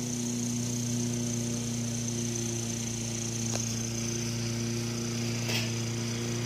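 A steady machine hum at one constant low pitch, with a thin high hiss over it and two small clicks, about three and a half and five and a half seconds in.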